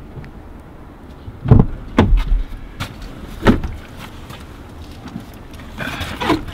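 Pickup truck rear cab door being opened from outside: several sharp clicks and clunks of the handle and latch, the first and loudest about a second and a half in. Near the end comes rustling as a soft tool bag is lifted into the cab.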